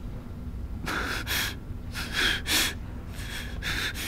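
A young man's gasping breaths: three pairs of short, sharp intakes as he chokes up on the verge of crying.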